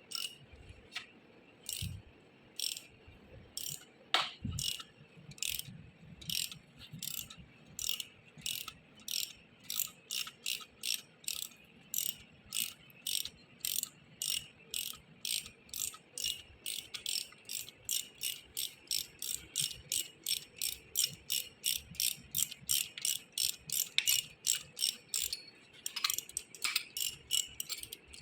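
Repeated short metallic clicking strokes from hand work on an electric motor during bearing replacement. They are sparse and irregular at first, then settle into a steady run of about two strokes a second.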